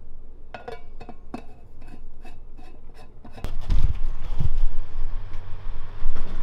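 About ten light clinks and taps of a coffee tumbler and mugs being handled on a counter, some with a brief ring. A little over three seconds in, this gives way abruptly to a louder steady low hum with a few heavy low thumps.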